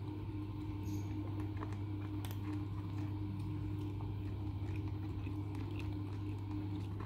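Kittens crunching dry kibble from a plastic bowl: faint, scattered small clicks over a steady low hum.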